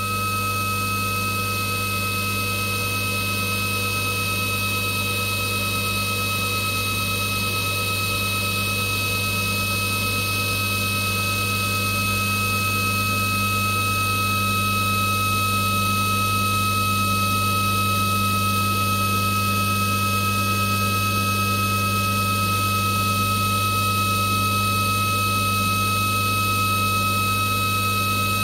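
CNC milling machine's spindle running steadily with an even whine while a small ball end mill takes a light 3D scallop finishing pass around an aluminium pocket.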